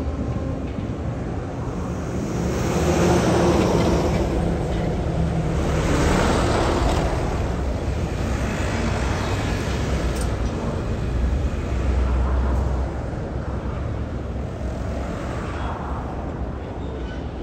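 Road traffic passing: several vehicles go by one after another, each swelling and then fading.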